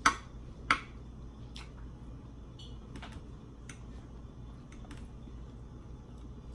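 Knife and fork clicking against the serving dish as steak is cut: two sharp clicks in the first second, then fainter ones about once a second, over a low steady hum.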